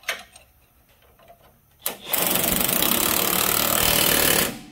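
Pneumatic wrench running continuously for about two and a half seconds, driving down the lower control arm bracket bolts. Light metallic clicks from fitting the tool come before it starts, about two seconds in.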